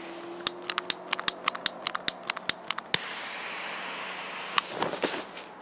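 Lighter being clicked rapidly about a dozen times to light a firecracker fuse, then a steady hiss as the flame burns, with a short scrape near the end.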